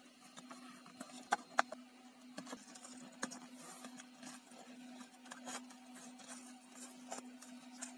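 Light clicks, taps and rustles of wires and a small circuit board being handled and pushed into a cylindrical housing, the two sharpest clicks close together about a second and a half in. A steady low hum runs underneath.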